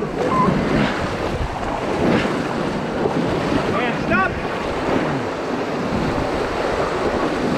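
River whitewater rushing and splashing around a raft in a rapid, with wind buffeting the microphone. A brief voice cry comes about four seconds in.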